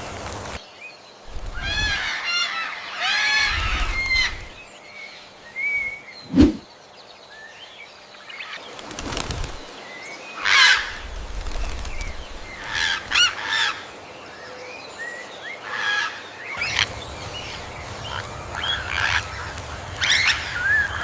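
Peafowl calling: two bouts of repeated, rippling calls about two and three and a half seconds in, with shorter bird calls and chirps scattered through the rest. A single sharp thump about six and a half seconds in.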